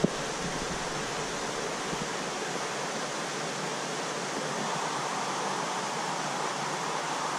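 Steady rushing noise of water circulating and splashing in a large aquarium's filtration system, with one sharp click right at the start.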